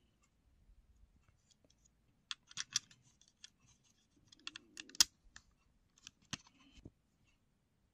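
Light plastic clicks and taps from the parts of a disassembled Lyft sign being handled: its LED board and plastic light-guide frame. The clicks come in a few small clusters, the sharpest about five seconds in.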